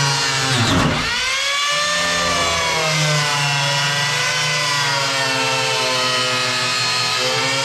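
A power tool cutting into fiberglass panel: its motor runs with a continuous whine whose pitch dips sharply as it bogs under load about a second in, then picks back up and wavers with the pressure on the cut.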